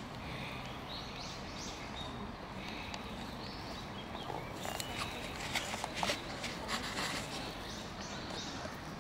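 Birds chirping and calling in short, scattered notes, busier in the second half, over a steady low outdoor background noise.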